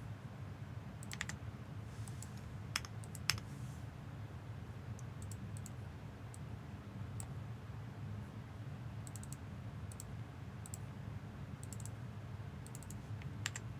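Scattered clicks from a computer keyboard and mouse, single and in small clusters, over a steady low hum.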